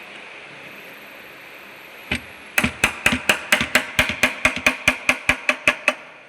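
Hammer striking a metal part of a truck gearbox being dismantled: a single blow about two seconds in, then a fast, even run of about twenty sharp blows, roughly six a second, that stops shortly before the end.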